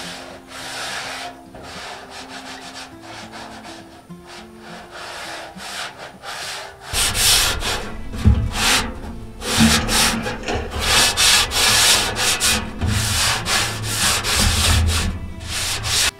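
Hand scrubbing along the baffled metal evaporator pan of a sorghum-syrup cooker: quick, irregular rubbing strokes that turn loud about seven seconds in and keep going, over soft background music.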